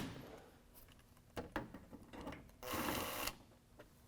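Ratchet wrench backing out a 10 mm bumper screw in a truck's wheel well. A few separate clicks come first, then a quick run of ratchet clicking lasting about half a second, about three seconds in.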